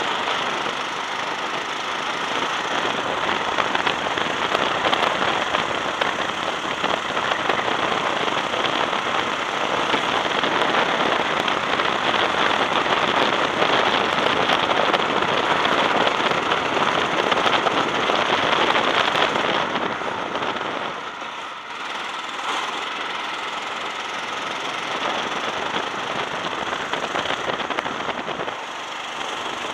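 Go-kart engine running hard at speed, heard from onboard with a dense rattling, crackling texture. It goes quieter for a moment about two-thirds of the way through, then picks up again.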